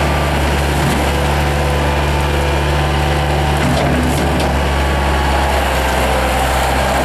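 Diesel engine of a 1995 Bobcat 853 skid steer loader running steadily at an even speed, with a few light clicks about halfway through.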